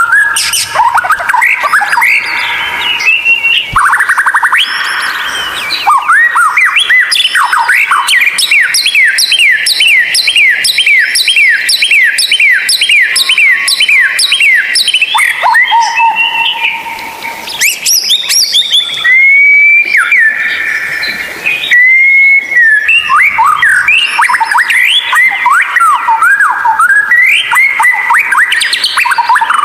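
White-rumped shama (murai batu) singing a loud, varied whistled song. Its phrases include a long run of quickly repeated rising notes in the first half and slurred whistles, with a short break about two thirds of the way through.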